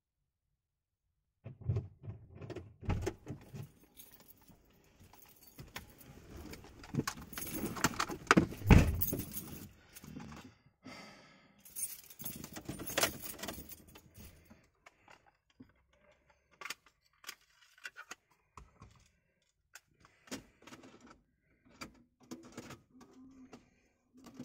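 Someone climbing into a car's driver's seat: rustling and shifting, keys jangling, and a heavy low thump about nine seconds in.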